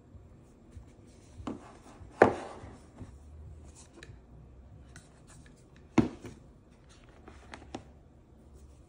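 Handling sounds of a camera and its packaging being unboxed: scattered clicks, taps and rustles, with two sharper knocks about two seconds and six seconds in.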